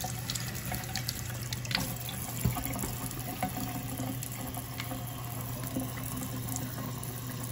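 Kitchen faucet running steadily into a stainless steel sink, with a few light clicks of handling in the first few seconds.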